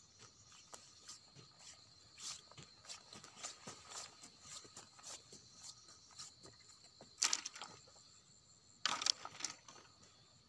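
Scattered rustling and crackling of dry grass and brush as someone searches through it for grasshoppers, with two louder rustles about seven and nine seconds in. Insects chirr steadily in the background.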